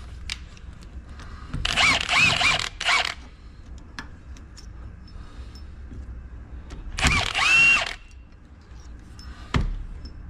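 Cordless drill-driver run in two short bursts, its motor whining up in pitch each time as it runs bolts into a hydraulic pump housing, with small metallic ticks and a knock near the end.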